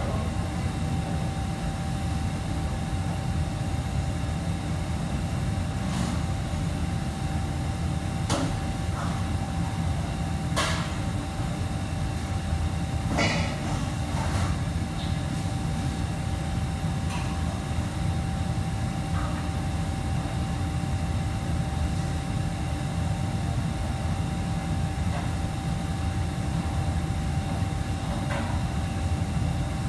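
Steady low mechanical drone of commercial kitchen machinery with a faint steady whine, broken by a few sharp clinks and knocks of utensils. The loudest knocks come about ten and thirteen seconds in.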